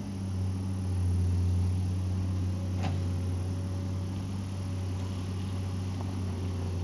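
Excavator's diesel engine running with a steady low drone, with a single sharp clank about three seconds in.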